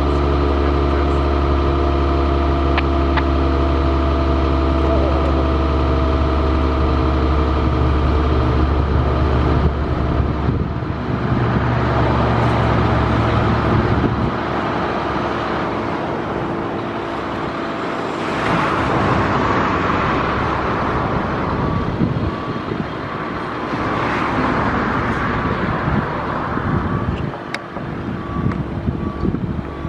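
A motor vehicle engine idling with a steady low hum, which cuts out about fourteen seconds in. After that comes a rushing noise that swells and fades, like passing road traffic.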